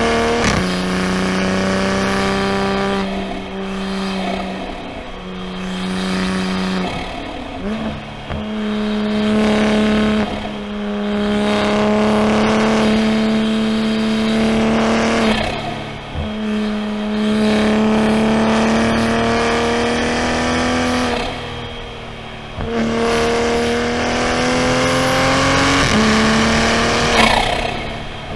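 Toyota GR Supra (A90) B58 3.0-litre turbocharged inline-six engine pulling under steady throttle. The revs climb slowly in long stretches, broken every few seconds by short breaks where the note drops off and comes back at a new pitch.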